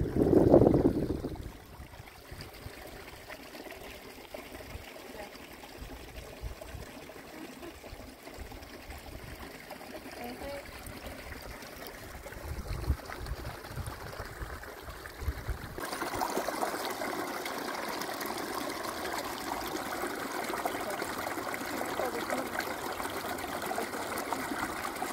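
Running water trickling steadily. About sixteen seconds in it turns abruptly louder and fuller.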